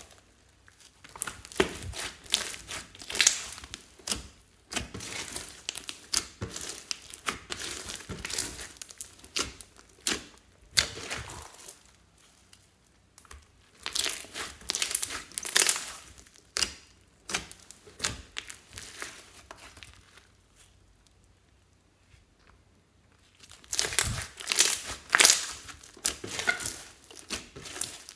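Clear pink slime packed with foam beads and glitter being squished, stretched and folded by hand: irregular bursts of crackling and squelching, with two short quiet pauses.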